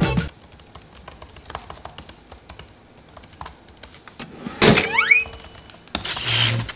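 Faint clicks of typing on a MacBook laptop keyboard. About four and a half seconds in, a loud sudden burst with rising whistle-like glides, then another loud noisy burst with a low hum near the end.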